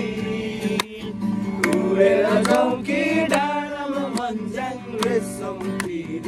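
Several people singing together to a strummed acoustic guitar.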